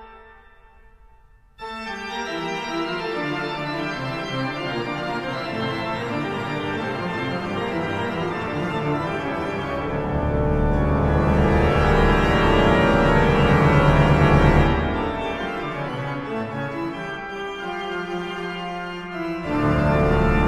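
Organ music playing sustained chords. It enters with a full chord about one and a half seconds in, swells with deep bass notes about halfway through, eases, and swells again near the end.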